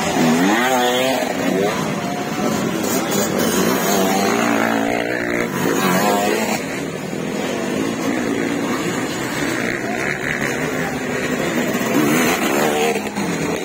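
Motocross dirt bike engines revving up and dropping back as the bikes ride the track and pass close by, the pitch climbing and falling again several times.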